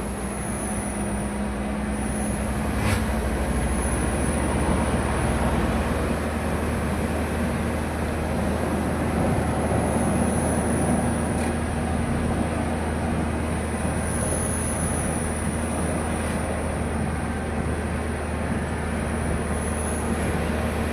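Steady engine hum and road noise of a vehicle driving along a road.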